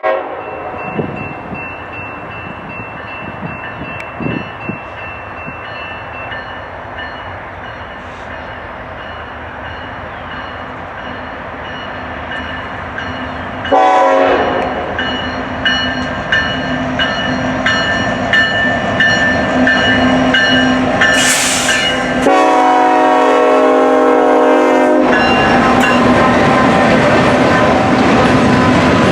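Norfolk Southern manifest freight train, led by SD70ACe and AC44C6M diesel locomotives, approaching and passing a grade crossing. The locomotive horn sounds, with a sudden loud blast about halfway through and a held chord of about three seconds near the end, followed by the loud steady rumble and clatter of the locomotives and cars rolling by.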